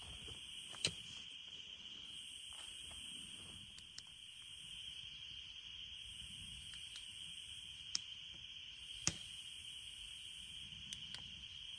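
A steady, high-pitched chorus of insects chirping, with a higher buzzing layer that swells and fades every couple of seconds. A few short, sharp clicks sound over it, the loudest ones about a second in and twice more later on.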